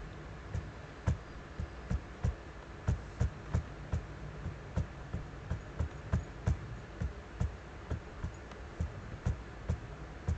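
Irregular clicking at a computer, about two to three sharp clicks a second, over a steady low hum.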